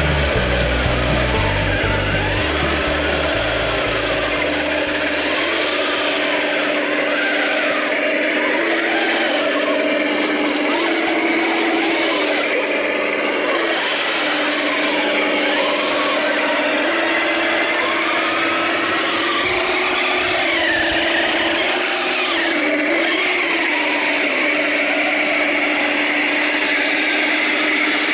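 Radio-controlled model tank driving: its electric drive motors whine, rising and falling in pitch as it changes speed, over a steady rasping clatter from the running gear and tracks.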